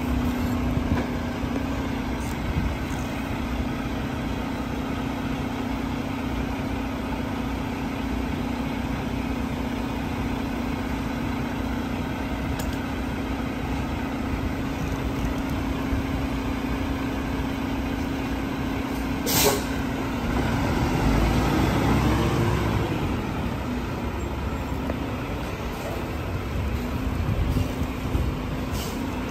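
DSNY rear-loading garbage truck's engine running with a steady hum. About twenty seconds in comes a short, sharp air hiss, and then the engine note rises and falls and grows louder for a few seconds.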